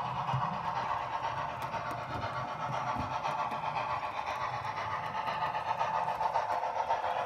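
Model steam locomotive running along the layout track, a steady running sound with a low rumble underneath.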